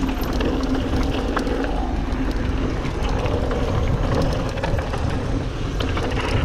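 A 2021 Giant Trance X mountain bike rolling fast down a dirt trail: a steady rush of wind and tyre noise, with many small clicks and rattles from the bike over rough ground.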